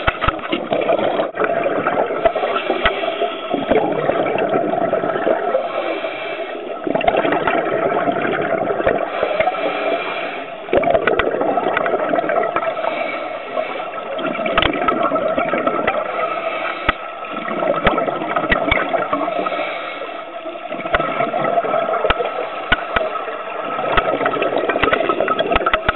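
Scuba diver's exhaled bubbles and regulator breathing heard underwater, a continuous gurgling rush that swells and dips every few seconds with each breath.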